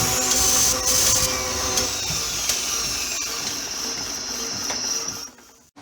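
An electric motor-driven tool running with a steady high whine over a noisy hum, then dying away and stopping near the end.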